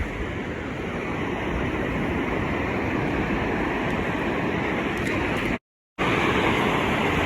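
Ocean surf washing onto the beach, a steady rushing wash with wind buffeting the microphone. The sound cuts out completely for about half a second, about five and a half seconds in.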